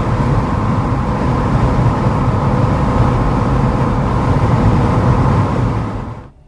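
Car on the move, a loud steady rush of road and engine noise that fades out about six seconds in.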